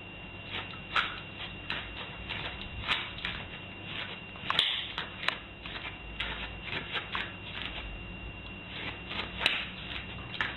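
A small terrier puppy's paws and claws scuffling and scratching on a bristly doormat and tile floor: irregular clicks and scrapes, a few sharper ones standing out.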